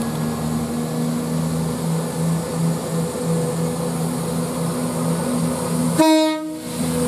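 Train running through with a steady, pulsing low hum, then a single short horn blast of about half a second near the end.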